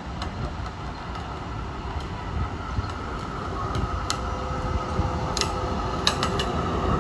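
A Melbourne A-class tram approaching and pulling in along the track, its running rumble growing steadily louder, with a handful of sharp clicks from the wheels on the rails in the last three seconds.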